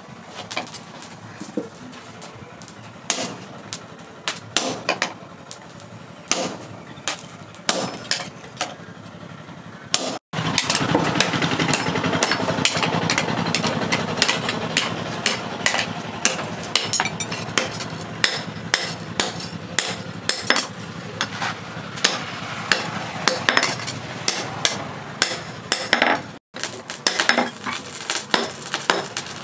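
Hand hammer striking red-hot leaf-spring steel on an anvil while an axe head is forged, sharp metal-on-metal blows at an uneven pace. The sound cuts out briefly twice.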